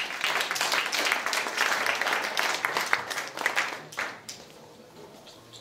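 Small audience applauding, a dense patter of claps that dies away about four seconds in.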